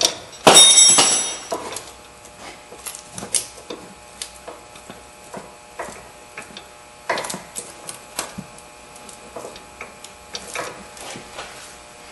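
Metal clicks and light knocks of hands and tools working the nut off a Ford Focus front sway bar link. One loud, ringing metal clank comes about half a second in, and scattered clicks follow.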